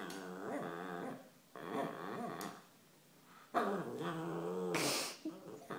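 Cavalier King Charles Spaniel growling playfully in three drawn-out, wavering grumbles with short pauses between them: play growls from a dog asking to play. A brief hiss comes near the end.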